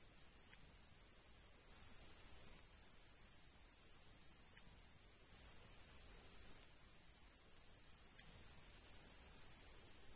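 Crickets chirping in the night: a steady high-pitched chirp repeating about three times a second over a continuous high trill.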